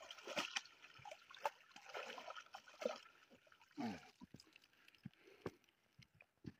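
Water pouring and splashing out of a mesh fish keepnet as it is lifted from the shallows, with scattered short knocks and rustles of the net and its hoops.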